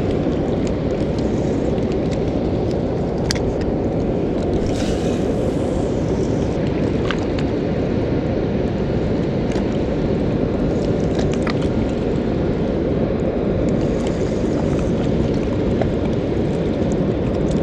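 Water pouring over a spillway dam: a steady, loud rushing noise, with a few faint clicks on top.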